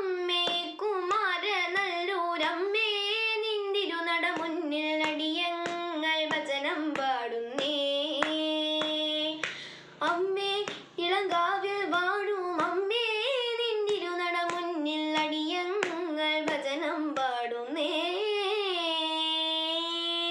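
A young girl singing a Carnatic devotional kirtanam to the Goddess, solo and unaccompanied. Her voice carries long held notes decorated with sliding, oscillating gamaka ornaments, broken by short breaths.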